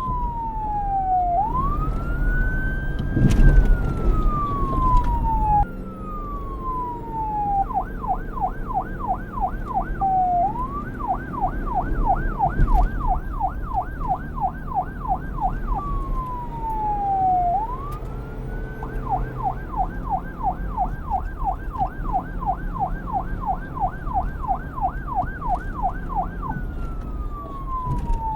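Police car electronic siren switching between a slow wail, with long falling and rising sweeps, and a fast yelp of rapid up-and-down sweeps about four a second. A steady low rumble runs underneath, and the sound cuts abruptly about six seconds in.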